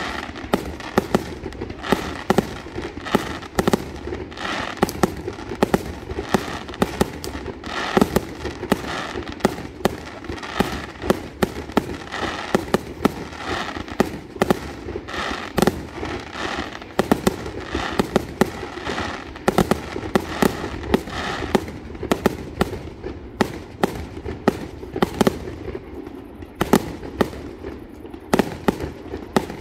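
Large fireworks display: a dense, continuous barrage of aerial shells bursting, many sharp bangs a second over a steady wash of crackle and echo.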